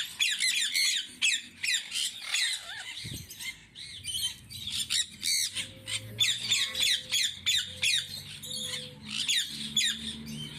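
A flock of parrots squawking and chattering, many short, sharp calls overlapping without a break.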